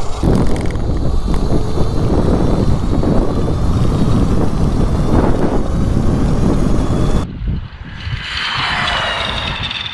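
Heavy wind rushing over the onboard microphone of an electric mini bike as it accelerates hard. About seven seconds in, the sound cuts to the bike heard from the roadside: a high electric-motor whine and rush that swell as it approaches.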